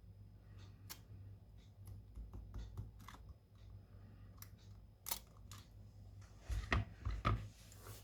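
Light, scattered clicks and taps of small hand tools and phone parts being handled, with a few louder knocks near the end, over a steady low hum.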